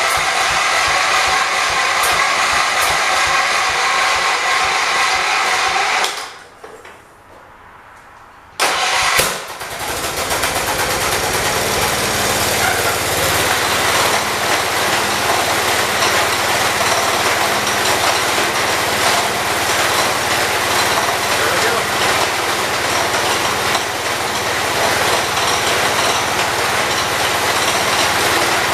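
John Deere 208 garden tractor's single-cylinder Kohler engine running. It dies away about six seconds in, is gone for a couple of seconds, then comes back abruptly and runs steadily. The tractor's seized drive pulley bearing has just been freed and oiled.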